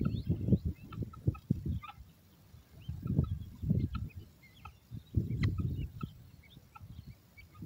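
Guinea fowl keets and adults giving many short, quick rising peeps and chirps, over louder low muffled buffeting that comes and goes in gusts.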